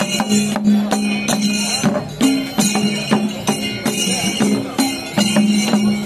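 Kerala temple procession music: repeated drum strokes and clashing hand cymbals over a held wind-instrument tone that steps up in pitch briefly about two seconds in.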